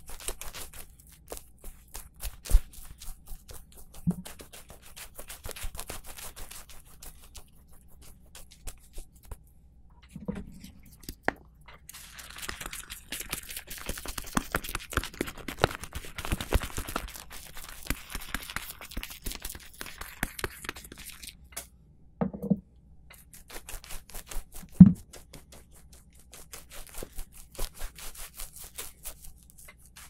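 Straight razor scraping through lathered forearm hair close to the microphone, in quick crackling strokes. In the middle a longer stretch of wet, fizzing crackle comes as shaving lather is worked in a small bowl, and a few dull thumps come from gear being handled.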